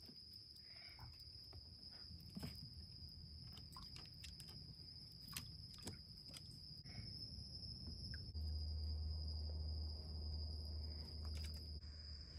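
Steady, high-pitched trill of night insects, with scattered light clicks and splashes from raccoons moving in a plastic kiddie pool. A low rumble sets in about eight seconds in and fades near the end.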